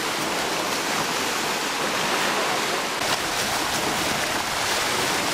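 Steady rush of sea water, small waves lapping and splashing in the shallows.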